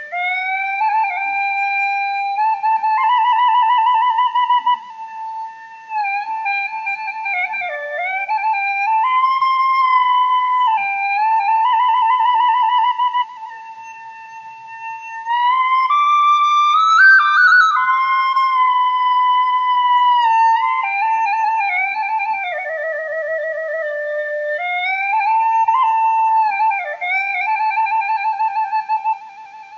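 Background music: a slow solo melody on a flute-like wind instrument, held notes with a slight vibrato.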